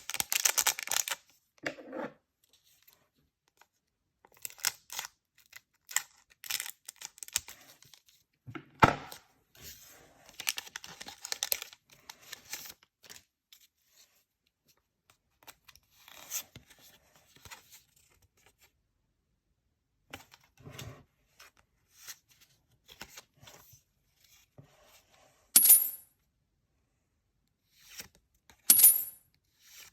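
A foil Pokémon card booster pack is torn open with a loud rip in the first second, then there is intermittent crinkling and rustling of the wrapper and cards. Near the end come three sharp, loud clicks with a high ringing edge.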